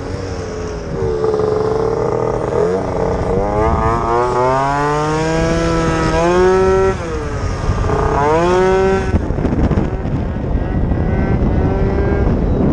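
49cc two-stroke scooter engine revving as the rider accelerates: its pitch climbs over several seconds, drops suddenly about seven seconds in, climbs again, then falls back to a rougher, lower note after about nine seconds.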